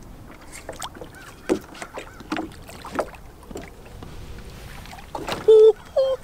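A hooked largemouth bass splashing and thrashing at the water's surface beside a boat as it is reeled in, with scattered small splashes. Near the end come two short, loud high-pitched cries.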